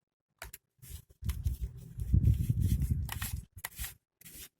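Hands working a plastic hair dryer attachment loose: short clicks and rustles, with a loud, uneven low rumble in the middle lasting about two seconds.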